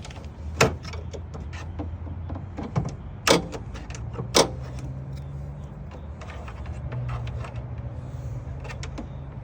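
Clicks and knocks from fingers and a tool fumbling at a pickup truck's hood safety latch, with three sharp loud clicks, one within the first second and two close together around the middle, among fainter ticks, over a low steady hum.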